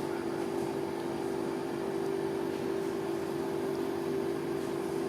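Steady mechanical hum with a constant low drone, like a motor or fan running without change.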